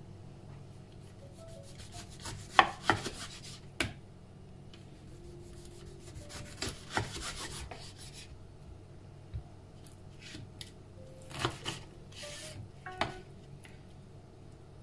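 Kitchen knife slicing a lemon on a wooden cutting board: irregular cuts, each ending in a sharp knock of the blade on the board, with quieter scraping and rubbing of the blade through the fruit between them.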